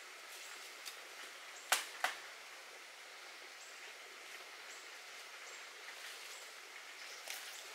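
Tropical forest ambience: an even background hiss with a few faint, short high chirps, and two sharp clicks close together about two seconds in.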